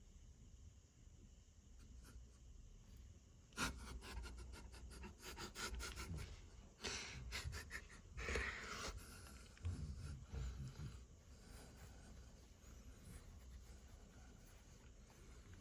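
A dog's noisy breathing and snuffling, mixed with quick rubbing and scratching sounds, starting about four seconds in and settling about eleven seconds in.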